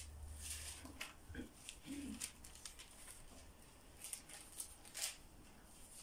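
Thin paper pages of a Bible being leafed through: a string of soft, brief rustles.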